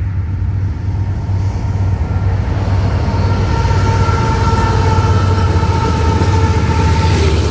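CSX coal train's diesel locomotives approaching: a steady deep engine rumble that slowly grows louder, with a rising hiss and a few steady high tones joining in about two to three seconds in.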